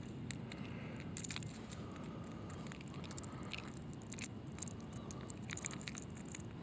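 Light clicks and clinks of a topwater plopper lure's treble hooks being worked free from a small largemouth bass hooked in the mouth and the side, scattered irregularly over a low steady background noise.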